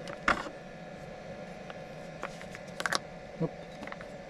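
Scattered clicks and knocks of coffee-making gear being handled and set in place, the sharpest about a quarter second in and a few more near the three-second mark, over a faint steady hum.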